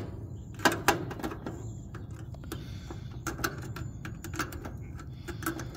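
Screwdriver blade clicking and scraping against the terminals of an air conditioner's dual run capacitor in a series of irregular sharp clicks, shorting them to discharge it; no spark or pop, as the capacitor holds no stored charge.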